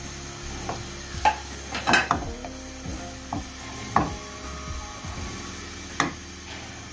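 Wooden spatula stirring a curry gravy in a metal karahi, knocking and scraping against the side of the pan a few times, loudest about two seconds in.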